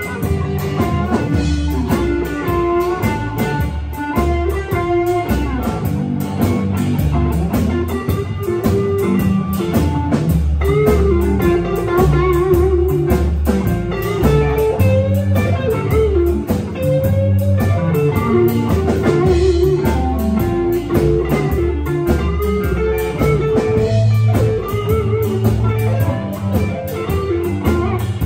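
Electric blues band playing live: an electric guitar lead with bent, wavering notes over bass and a drum kit with a steady cymbal beat, no vocals.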